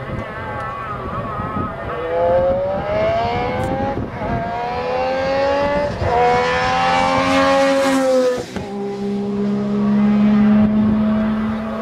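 Rally car accelerating hard up through the gears, the engine note rising in each gear with a shift about every two seconds, then settling to a lower steady note for the last few seconds.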